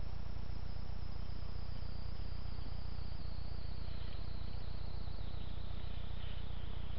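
Steady hiss and low hum from a Maginon WK3 HD trail camera's built-in microphone, with a high, faint band of noise that sinks slowly in pitch.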